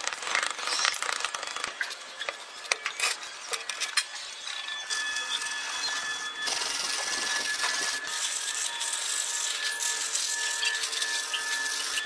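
Hand tools scraping and rubbing on a plastic tray and on the stove's steel parts. It is irregular and scratchy with clicks over the first few seconds, then a steadier rasp.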